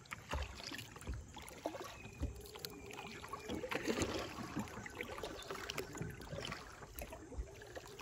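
Kayak paddle strokes dipping and splashing in calm river water, with low knocks now and then.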